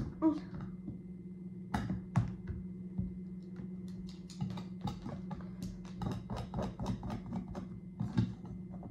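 Light, quick taps and clicks of a diamond painting pen pressing small resin drills onto the canvas, coming a few times a second in the second half, over a steady low hum.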